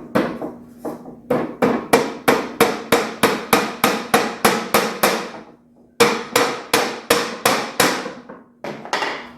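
A hammer driving a new nail into a loose wooden drawer bottom: a fast run of sharp blows, about three a second, a short pause about halfway, then more blows and a few last taps near the end.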